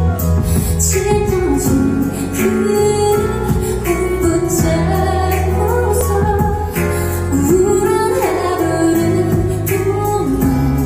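A female solo vocalist sings a slow, emotional pop ballad into a handheld microphone, holding long gliding notes over an accompaniment with bass and a steady beat.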